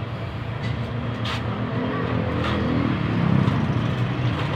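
A motor vehicle's engine running, a steady low hum that grows louder and peaks about three seconds in, with a few faint clicks.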